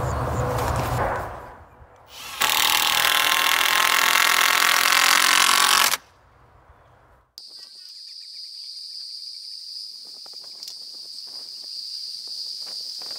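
Cordless drill driving a screw into lumber: a loud, steady motor whine lasting about three and a half seconds that stops abruptly. Later a fainter steady high-pitched tone with scattered small clicks.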